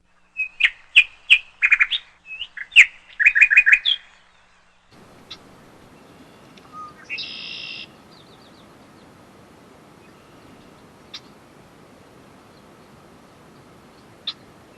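Small wild birds chirping in quick, loud runs of calls for about four seconds, then a faint steady background with a few scattered single chirps and one short buzzy call partway through.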